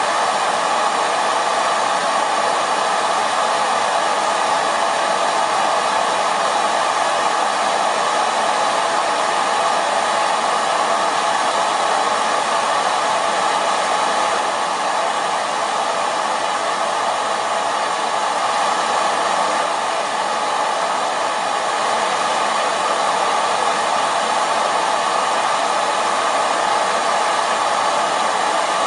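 Hair dryer blowing steadily at a constant speed, an even whooshing hiss with a faint motor hum and no change in pitch or level.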